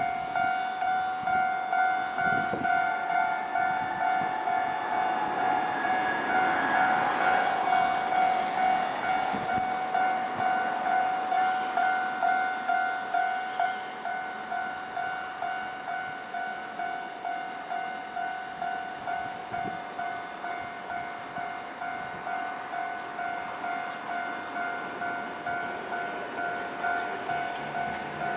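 Japanese railway level-crossing warning bell ringing in a steady, rapid, even rhythm. A Nankai Electric Railway train passes through the crossing about a third of the way in, rising and fading under the bell. The bell goes quieter about halfway through but keeps ringing.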